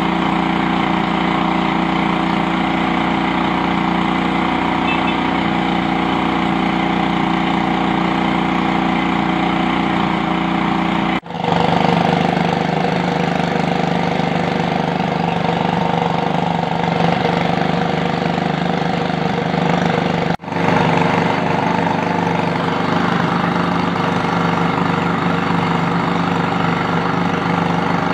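Small engine-driven water pump running steadily, drawing water out of a concrete well through a suction hose. The sound cuts out for an instant twice, about 11 and 20 seconds in.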